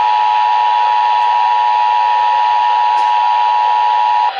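Emergency Alert System attention signal: a loud, steady two-tone alarm that cuts off abruptly near the end. It marks the start of a broadcast emergency alert.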